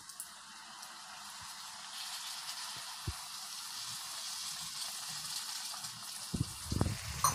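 Water poured into a cast iron pan of stuffed brinjals frying in oil, the hot oil sizzling, the hiss slowly growing louder. A few low thuds near the end.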